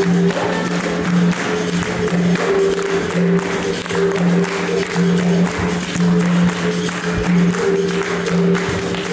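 Capoeira roda music: berimbau, atabaque drum and pandeiro playing a steady, repeating rhythm, with the surrounding circle clapping along.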